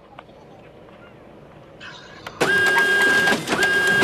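Toy train's small electric motor and gears whirring loudly with a steady whine, starting suddenly a little past halfway and breaking off briefly just before the end.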